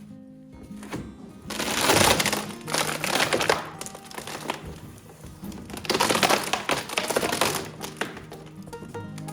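Background music with steady sustained tones, broken by two long bursts of dense crackling noise, about one and a half seconds in and about six seconds in.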